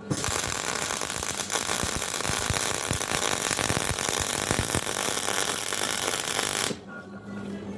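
MIG welder arc crackling as steel is welded, a steady spitting crackle of about six and a half seconds that stops abruptly near the end.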